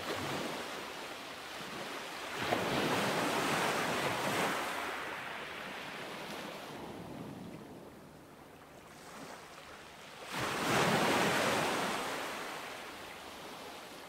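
Ocean surf washing over a rocky shore: two waves surge in, one about two seconds in and another about ten seconds in, each swelling and then slowly draining away.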